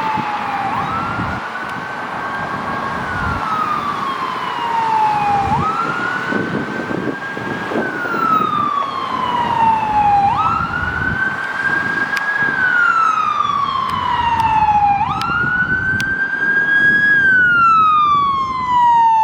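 Fire engine siren on wail: a tone that sweeps up quickly, holds near the top, then falls slowly, repeating about every five seconds, four times over, above the low rumble of the moving truck.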